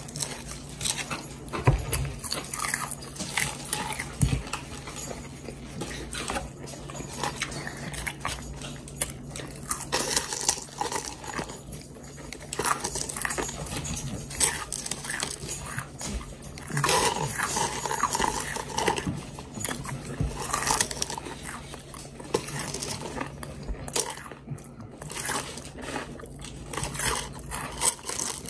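Close-up eating sounds: crunching and chewing of crisp double-fried fries and cheeseburgers, with many short sharp crunches over a steady low hum.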